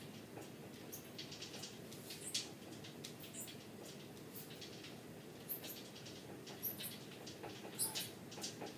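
Steel power-tower dip station squeaking and creaking under a person's bodyweight during dip reps: short high squeaks and clicks at irregular intervals, over a steady low hum.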